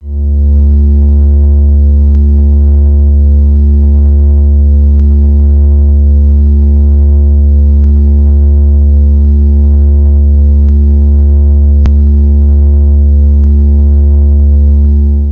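Synthesized space 'sound' for a trans-Neptunian object: a loud, steady low drone made of stacked tones, with a slow pulsing about once a second. It starts and stops abruptly.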